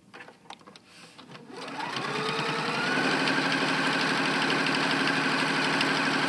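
Pfaff Quilt Ambition 2.0 sewing machine stitching a seam: a few light clicks, then about a second and a half in the motor speeds up with a rising whine and settles into steady, fast stitching.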